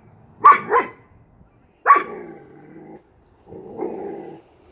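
A young German Shepherd barking: two quick sharp barks, a third longer bark about two seconds in, then a lower, drawn-out growl near the end.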